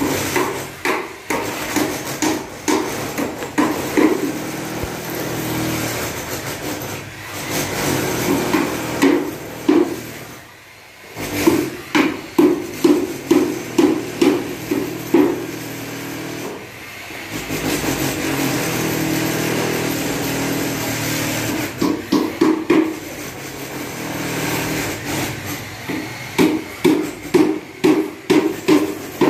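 Hammering: several runs of quick, evenly spaced blows, about two or three a second, with a short ringing tone on each, broken by stretches of steadier background noise.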